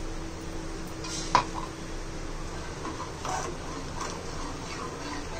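Steel ladle stirring freshly added rice batter in an aluminium pot, with a sharp metal clink about a second in and softer knocks and scrapes of the ladle against the pot from about the middle on.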